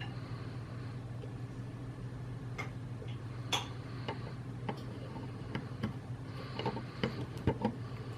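Soldering work on a PS4 controller board: scattered small clicks and taps of tools and parts, with a cluster of them near the end, over a steady low hum.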